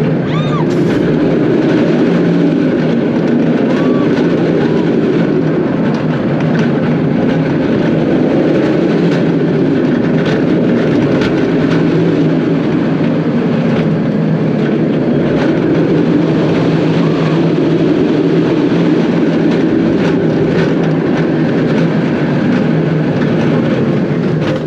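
Kumba, a Bolliger & Mabillard steel roller coaster, its train running at speed along the track: a loud, steady roar of wheels on steel rail, mixed with wind rush.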